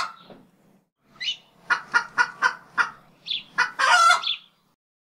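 Chicken clucking: a run of short clucks about four a second, broken by two brief rising squawks, ending in a longer drawn-out call just after the fourth second.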